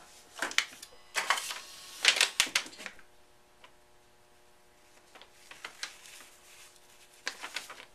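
Handling noise of clicks and rustles, loudest in the first three seconds, then sparse fainter clicks as the black plastic helicopter fin pieces of a model rocket are fitted together by hand, over a steady faint hum.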